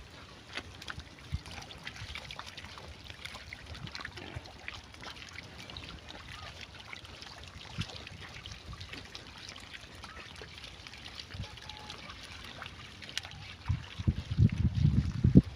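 Pigs moving in muddy water: a steady light trickling and splashing, dotted with small clicks, with a few louder, low bursts near the end.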